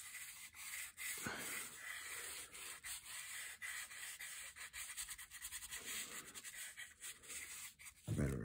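Yellow watercolour pencil scratching on brown paper in quick, short back-and-forth colouring strokes. A brief louder low sound comes near the end.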